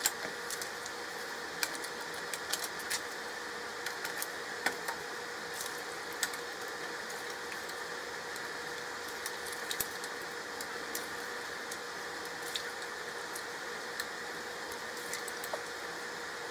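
Metal utensil clinking and scraping against a stainless stockpot and platter as boiled food is scooped out, in scattered short clicks over a steady background hum.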